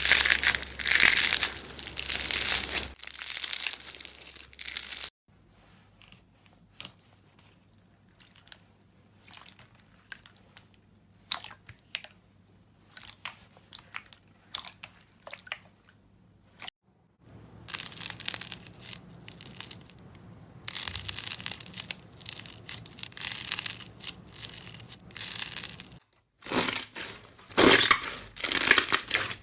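Slime being squeezed, pressed and pulled by hand, giving many small sharp clicks and pops. The sound comes in several separate stretches: dense for the first few seconds, then sparse faint clicks for about twelve seconds, denser again, and a few loud pops near the end.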